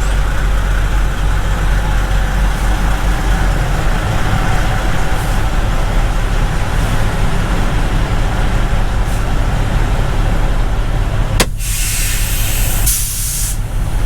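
Semi truck's diesel engine running steadily, heard from the cab, as the truck moves into a parking spot. About two thirds of the way in there is a sharp click, followed by loud bursts of air hissing: the air brakes being set.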